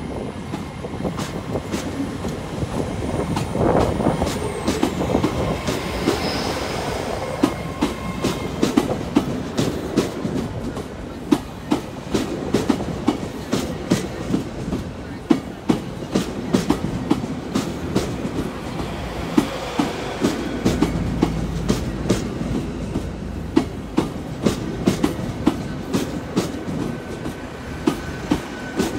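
Great Western Railway Intercity Express Train to London Paddington moving through the station, its wheels clicking steadily over rail joints, with a faint high whine in the first few seconds and a deeper rumble joining in the second half.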